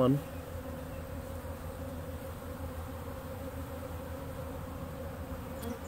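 Honeybees buzzing on a comb frame of an open hive during an inspection, a steady, even hum.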